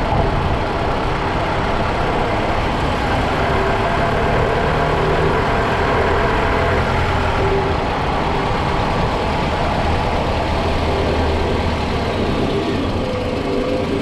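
Toyota Vanguard 240S with its 2.4-litre 2AZ-FE four-cylinder petrol engine running, a steady, even engine and vehicle noise.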